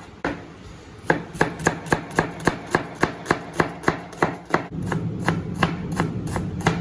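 Kitchen knife chopping an onion on a cutting board: after about a second, a steady run of sharp strokes, about four a second.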